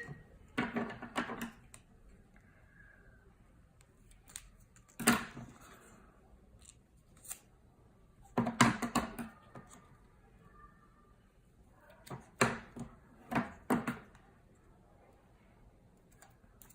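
Cardstock being handled by hand: short bursts of paper crinkling and tapping, about five in all, with quiet between.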